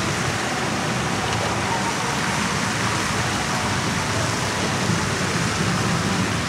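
A steady rushing of running, splashing water, with people talking faintly under it.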